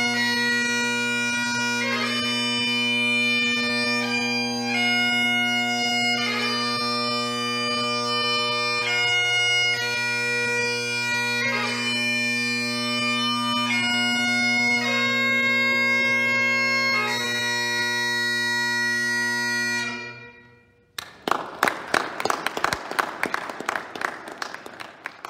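Great Highland bagpipe playing the closing phrases of a piobaireachd, long chanter notes over steady drones. The pipes stop about 20 seconds in. About a second later comes a short round of applause that fades away.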